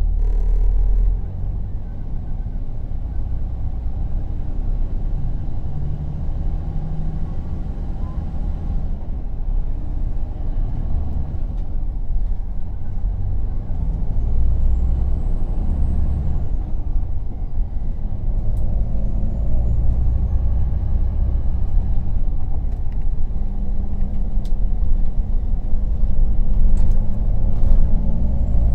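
Temsa Safir Plus coach's diesel engine running as the coach pulls slowly out of its platform, heard inside the cabin as a low rumble whose engine note shifts up and down and grows a little louder near the end.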